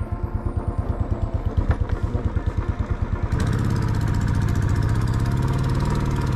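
Royal Enfield Classic 350's single-cylinder engine idling with an even, slow thump; a little past halfway the revs pick up and the bike runs on more steadily, with added road and wind rush.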